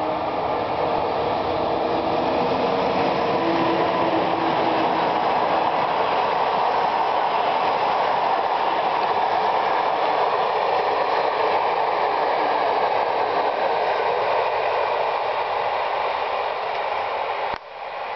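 Passenger train hauled by an electric locomotive passing close: a steady, loud rumble and clatter of the coaches' wheels on the rails, with a faint low hum in the first few seconds. The sound cuts off suddenly near the end.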